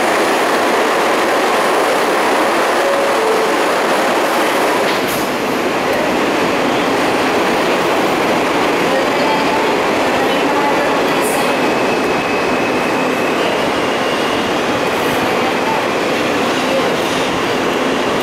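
Inside an R160 subway car running between stations in a tunnel: the steady loud rumble and rush of the wheels on the rails. A couple of sharp clicks come at about 5 and 11 seconds, and a faint high squeal is heard in the second half.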